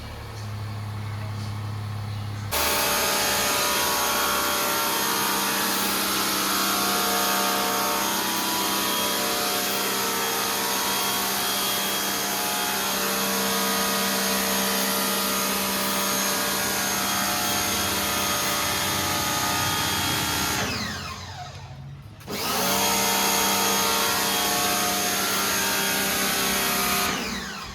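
Electric pressure washer motor (Agaro, 135 bar) starts abruptly a couple of seconds in and runs with a steady whine while spraying. About twenty seconds in it winds down with a falling pitch as the trigger is released, then starts again about two seconds later. It winds down once more near the end.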